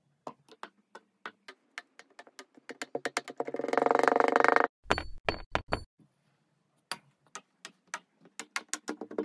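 Electronic backing music: clicks that speed up until they merge into a buzzing tone, which cuts off sharply. A few deep thumps follow, then the clicks start again and speed up once more.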